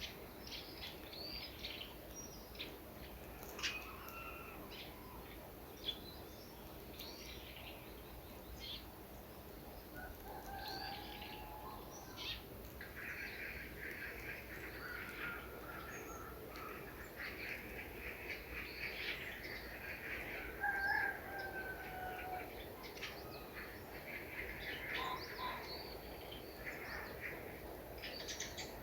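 Birds chirping and singing, many short calls scattered throughout, thickening into a dense stretch of calling through the second half.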